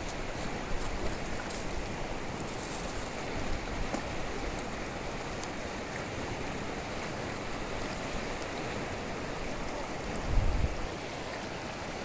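Muddy river in flood after rain, rushing past the bank in a steady, even wash of water noise. About ten seconds in, a short low buffet hits the microphone, the loudest moment.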